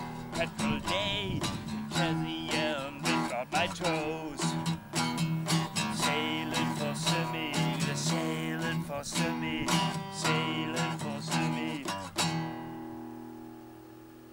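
Taylor 420 six-string steel-string acoustic guitar strummed through the closing bars of a song. The last chord, about twelve seconds in, is left to ring and fade away.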